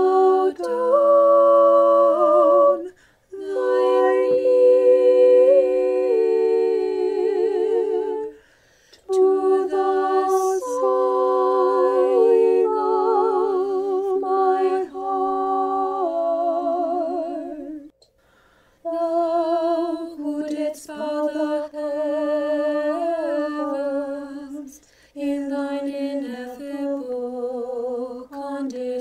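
Orthodox church choir singing a cappella in several parts, an arrangement of Old Bulgarian chant: sustained chords with vibrato in long phrases, broken by four brief pauses.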